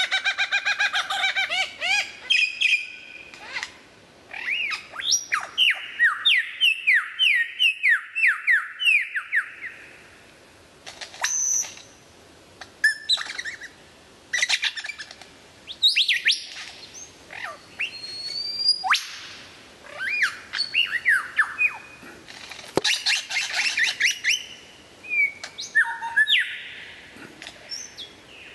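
A male superb lyrebird singing during his display: a loud, varied song of quick runs of whistled notes sweeping up and down, sharp clicks and chips, and harsher calls, the phrase changing every few seconds, with a brief pause about ten seconds in. This varied song is the lyrebird's mimicry of other sounds.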